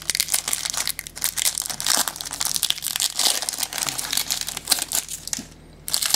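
Foil trading-card booster pack being torn open and crinkled by hand: a dense run of crackling that dies down about five seconds in, with one short crinkle near the end.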